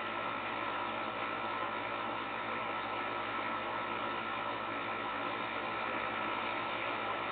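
Steady hiss and low hum with a faint constant high tone, unchanging throughout, as picked up by a security camera's microphone.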